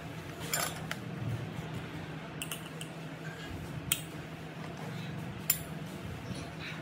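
A few sharp metallic clicks and clinks as a disc is fitted onto an angle grinder's spindle and handled, over a steady low hum.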